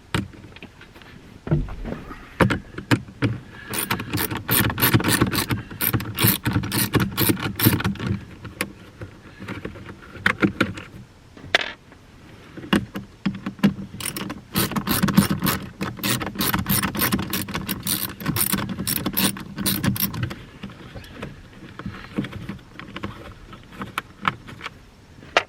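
Hand ratchet with a 7 mm socket clicking rapidly in two long runs as two small trim-panel bolts are backed out, with a few single knocks of tool handling around them.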